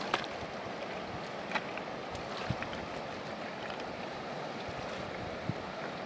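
Steady rush of river water, with a few short sharp knocks.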